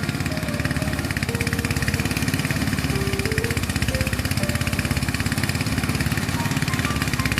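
Engine of rice-harvesting machinery running steadily, with a fast, even firing pulse.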